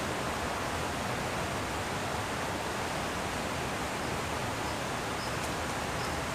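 Steady rushing of river water flowing over rocks, an even hiss that does not change. A few faint small ticks sound over it near the end.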